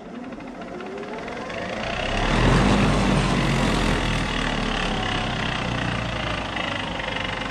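Bridgeport milling head's three-phase motor, fed by a static phase converter, spinning up with a rising whine over the first two seconds and then running steadily. It is straining under load with the variable speed set near maximum; the owner blames the static phase converter for not giving it enough power to stay up to speed.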